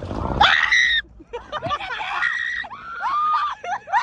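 Women screaming and shrieking in alarm at a bee buzzing around them. A loud scream comes about half a second in, followed by a run of short rising-and-falling yelps and cries.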